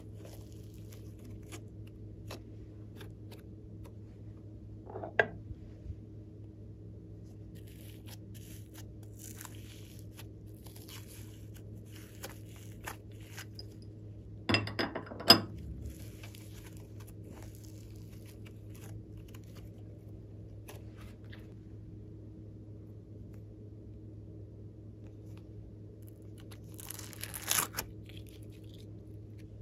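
Slime being stretched, folded and squished by hand, with faint sticky crackles throughout over a low steady background hum. A few louder handling sounds stand out, the loudest about halfway through and another near the end as the plastic tub of floam beads is handled.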